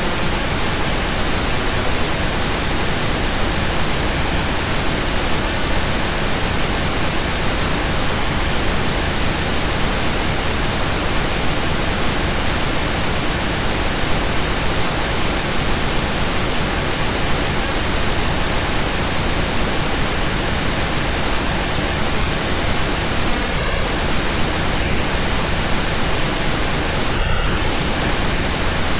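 Steady synthesized noise, an even hiss spread across all pitches that never changes in loudness. Faint high tones sound in short stretches every second or two.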